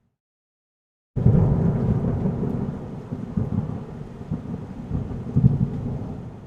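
Thunder rumbling over steady rain during a tropical storm. It comes in suddenly and loud after about a second of dead silence, then slowly dies away.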